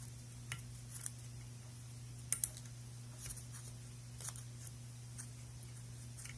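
Slim hook pick and tension wrench working the pin stack of an ACE padlock: scattered faint metallic clicks and scrapes, two louder clicks about two and a half seconds in, over a steady low hum.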